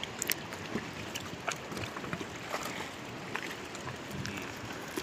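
Water lapping and splashing around a wooden outrigger fishing boat, with wind on the microphone and scattered small knocks and splashes.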